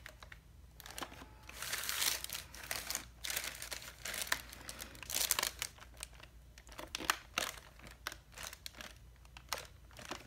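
Irregular crinkling and rustling of a paper pressing sheet and a waterproof fabric bag as hands press down hard on a heat press.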